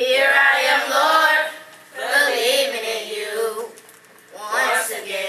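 Youth choir singing together in three short phrases, with brief breaks between them.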